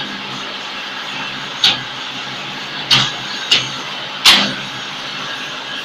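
Hydraulic interlocking-brick press running with a steady mechanical hum, with four sharp metal clanks as its mould and levers are worked, the loudest about four seconds in with a short ring.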